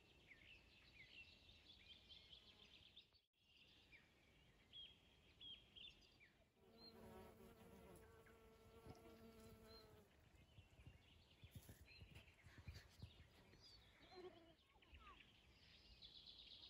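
Faint outdoor ambience of small birds chirping and calling, with a bee buzzing steadily from about seven to ten seconds in.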